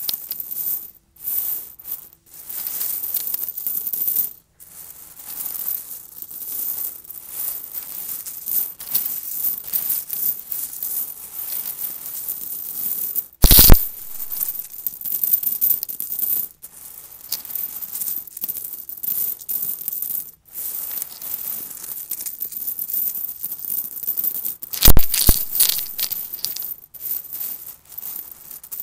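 A vacuum cleaner sucking up small hard debris that rattles and clinks through it, over a hiss of airflow. The noise keeps cutting in and out, with two sharp knocks, one near the middle and one later on.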